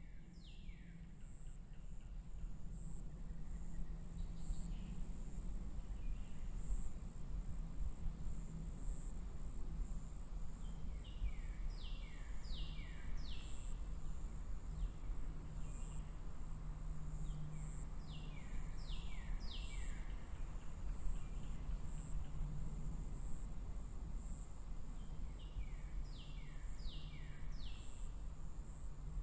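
Outdoor meadow ambience: a steady low rumble under a bird singing a short phrase of three or four quick falling notes every six or seven seconds, and a faint high buzz pulsing about once a second.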